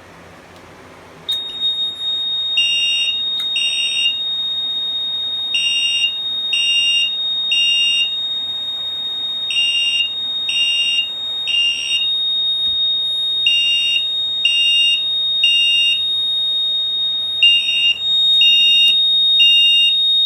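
Mircom FHS-240 horn strobe sounding in the temporal-three evacuation pattern. About a second in, a steady high-pitched tone comes on, and over it the horn gives three short blasts, pauses, and repeats roughly every four seconds. It has been set off by pulling the manual fire alarm pull station.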